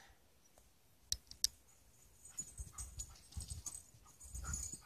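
Two sharp clicks about a second in, then a dog's soft panting and movement, faint.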